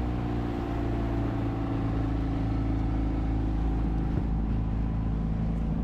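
Small outboard motor pushing a tender across the water at speed, running steadily at an even pitch.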